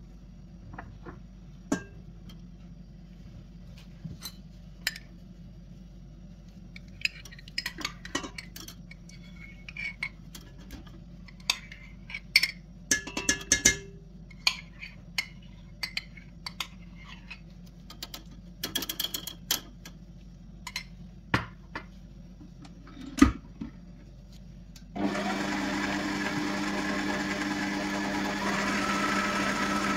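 Scattered clicks, knocks and clinks of kitchen utensils and containers being handled, then about 25 seconds in a small electric kitchen appliance motor switches on and runs steadily, getting a little louder near the end.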